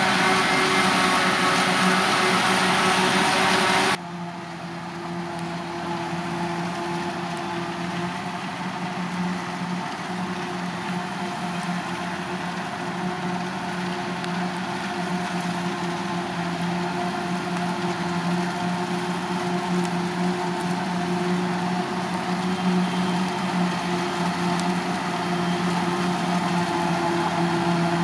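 Krone BiG X 530 self-propelled forage harvester chopping maize, its engine, cutterhead and blower running steadily, with the tractors hauling the silage trailers alongside. The sound drops sharply about four seconds in, then grows slowly louder toward the end.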